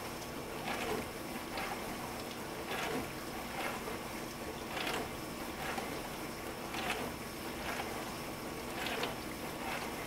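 Frigidaire dishwasher's wash motor running in its diagnostic wash test, circulating water inside the closed tub. There is a steady rush of water with a swish of spray about once a second.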